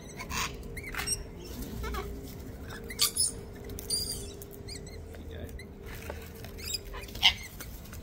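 A feeding flock of wild parrots, sulphur-crested cockatoos and rainbow lorikeets, chattering with short, sharp squeaks and chirps, with louder screeches about three seconds in and near the end.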